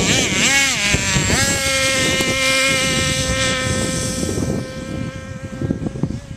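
RC car's motor revving in a few quick up-and-down blips as it pulls away, then holding a steady high-pitched full-throttle note that fades out about four and a half seconds in as the car goes off across the field.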